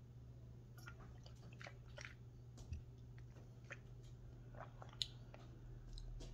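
Faint wet mouth sounds with scattered small clicks: a denture wearer rinsing and swishing a mouthful of water around her mouth after eating.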